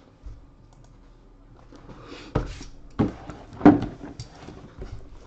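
A boxed Tristar mini helmet is handled on a table: a rustle, then three sharp knocks of the cardboard box being lifted and bumped about two, three and three and a half seconds in.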